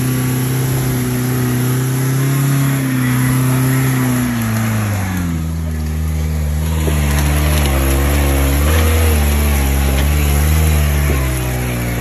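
Off-road jeep engine running hard under load, its pitch stepping down about four to five seconds in and then rising and falling a little. It is plausibly the jeep pulling on a tow rope during a rescue on a forest trail.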